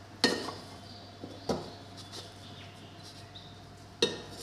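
Wooden spatula knocking and scraping against a kadhai while cooked potato-spinach filling is scooped out onto a plate: a few sharp clinks, the first two about a second apart and another near the end.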